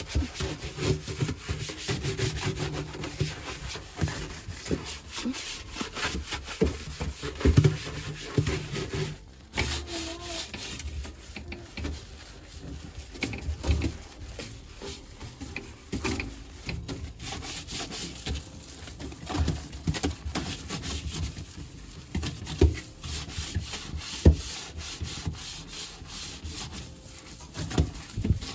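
Cloth wiping and scrubbing hard surfaces in steady back-and-forth rubbing, with scattered sharp knocks of items being handled and set down.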